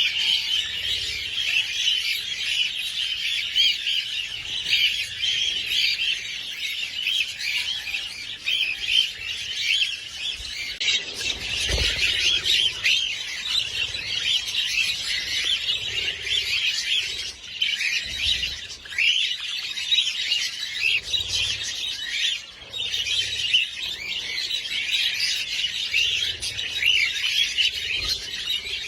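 A flock of small parrots chirping and squawking together in a dense, unbroken chatter of high, rapid calls.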